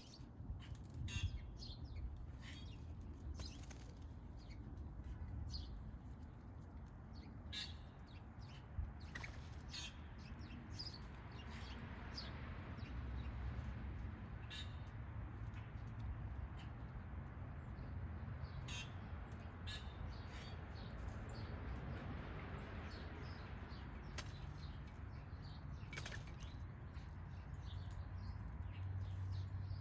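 Backyard birds at a feeder: scattered short chirps and wing flutters over a steady low rumble.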